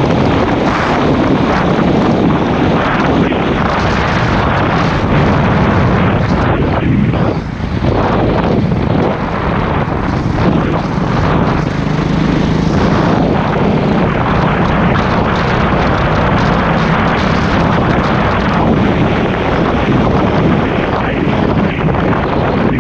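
KTM 450 SX-F supermoto's single-cylinder four-stroke engine running under way with wind noise on the helmet microphone, on a test ride after a rebuild with a new Wössner connecting rod. The engine sound dips briefly about seven seconds in.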